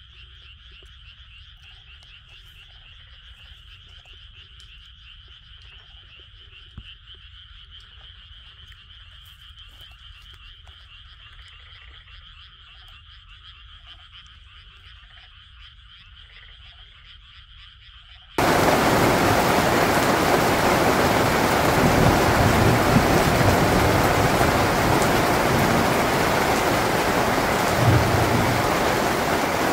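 A faint, steady chorus of frogs; about two-thirds of the way through it cuts suddenly to loud, steady rain falling on a tent.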